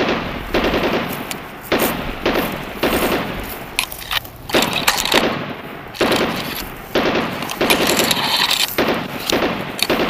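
Repeated bursts of rapid machine-gun fire with heavier sharp reports among them, starting suddenly and dying away near the end: a battle sound track.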